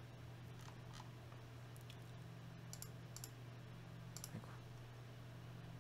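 About half a dozen faint clicks from a computer mouse and keyboard, scattered irregularly over a steady low hum.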